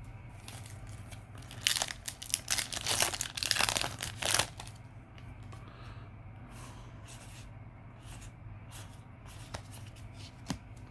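Foil booster pack of trading cards being torn open and crinkled, the crackling loudest from about two to four and a half seconds in, then a few light handling clicks.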